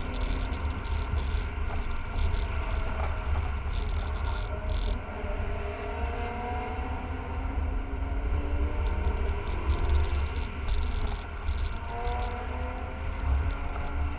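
BMW car's engine and tyres heard from inside the cabin while driving: a steady low rumble, with the engine note rising a few times as the car accelerates.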